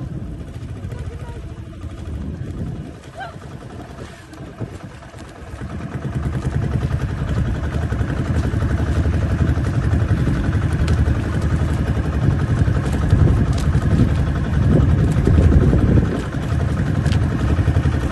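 Motorboat engine running, the rumble growing much louder about six seconds in and staying loud.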